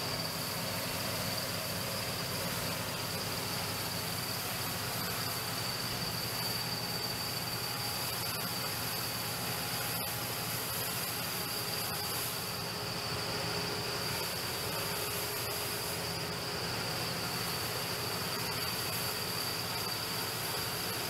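PALESSE GS12 combine harvester running steadily with its Slovianka UAS-7 stripper header harvesting wheat at low speed: a steady low machine hum with a constant high-pitched whine over it. There is one short click about halfway through.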